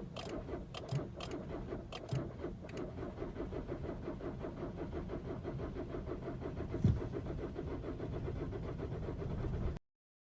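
2013 VW Jetta 2.0 TDI diesel engine turning over on the starter in a long, steady, even rhythm without catching: a slow, hard start, which the owner blames on water collecting in the intercooler. There are sharp clicks in the first few seconds and a single thump about seven seconds in, and the sound cuts off abruptly near the end.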